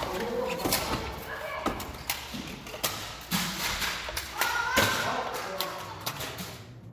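Nerf foam blasters firing and darts striking: a scattered run of sharp thuds and taps, with people's voices calling out.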